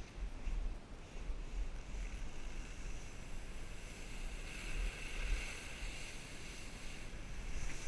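Wind buffeting the microphone of a camera carried by a skier going downhill, under the hiss of skis sliding over snow. The scraping hiss grows louder about five seconds in, as the skier leans into a turn.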